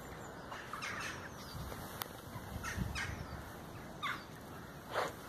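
Cockapoo snuffling with its nose buried in the loose soil of a freshly dug molehill, giving short, sharp sniffs and snorts every second or so.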